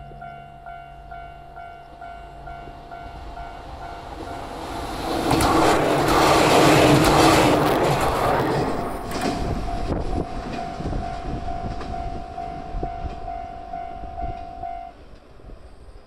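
Level-crossing warning bell ringing in a steady pulse, about twice a second, while a JR 115 series electric train passes close by. The train's wheels on the rails rise to a loud rush with clattering in the middle, then fade, and the bell stops shortly before the end.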